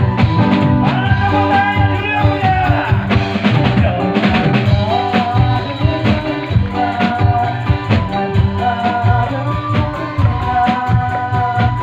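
Javanese folk music: drums and percussion keeping a steady beat under a sustained, wavering melody line.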